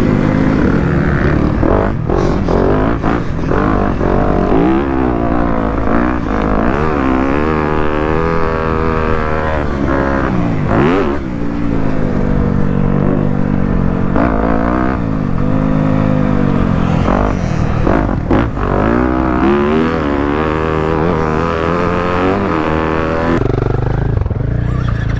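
Motocross dirt bike engine on a fast lap, revving up and dropping back over and over as the throttle opens and closes through corners and jumps, with the pitch steadying lower near the end.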